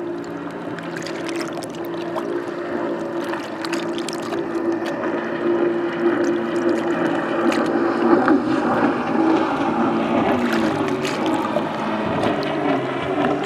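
A motorboat engine running steadily over the water, its hum dipping slightly in pitch about ten seconds in, with small waves lapping and splashing against the shore.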